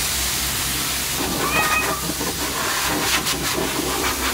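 Forced-air pet dryer (water blower) blowing a steady, loud hiss of air through its hose onto a wet Shiba Inu's coat. A brief high whine from the dog comes about one and a half seconds in.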